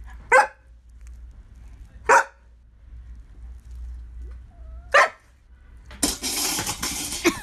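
A large husky-type dog giving three short, sharp single barks a couple of seconds apart. Near the end comes just over a second of loud, hiss-like noise.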